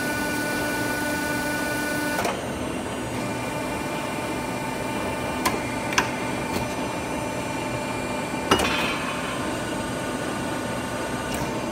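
W28K pipe-bending machine running with a steady hum made of several held tones, which thins out about two seconds in. A few sharp clicks of the machine's parts come in the middle, the loudest about eight and a half seconds in.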